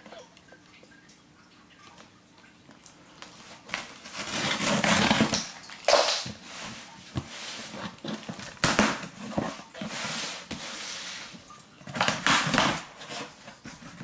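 Packing tape being slit and ripped off a cardboard box: a few rasping tears, the longest about four seconds in, with cardboard rustling and the box flaps being pulled open near the end.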